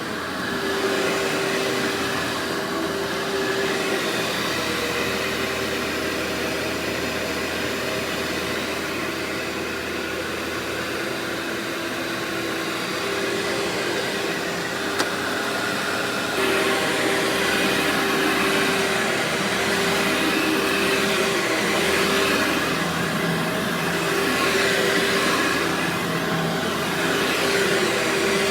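Vacuum cleaner running steadily, a constant motor hum over airflow noise. It grows louder a little past halfway, with a single brief click just before that.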